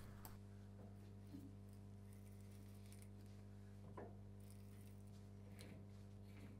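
Near silence: a steady low hum with a few faint clicks as a tap is turned by hand into a steel part, cutting a 7/16 UNF internal thread.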